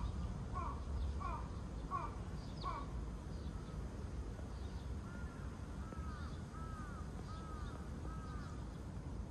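A bird calling repeatedly outdoors: a run of short falling calls about every 0.7 s that stops about three seconds in, then after a pause a second run of arched, rising-and-falling calls. A low steady rumble runs underneath.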